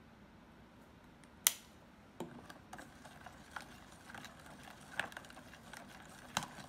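Metal spoon stirring glittery glue in a plastic container, clinking and scraping against the container irregularly from about two seconds in. A single sharp click comes just before the stirring starts.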